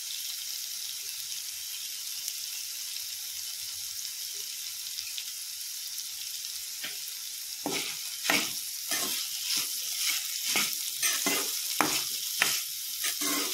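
Carrot and pea sabzi sizzling steadily in a non-stick kadhai. About eight seconds in, a metal spatula starts stirring it, scraping the pan in repeated strokes roughly every half second.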